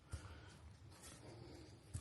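Quiet room tone with two faint soft thumps, one just after the start and one near the end, each with a brief rustle.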